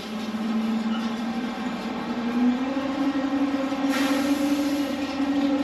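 Gravel spreader truck running as it creeps forward spreading gravel through its conveyor: a steady drone whose pitch climbs slightly about two and a half seconds in, with a brief hiss about four seconds in.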